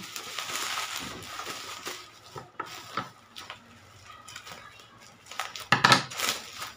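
Bubble wrap and plastic packaging crinkling and rustling as it is handled and cut open with scissors, with a few sharp clicks in the middle. A louder burst of crinkling and handling noise comes near the end.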